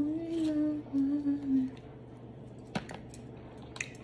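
A woman humming with her mouth closed, two short hummed stretches, the second falling slightly in pitch. Two sharp clicks follow in the second half.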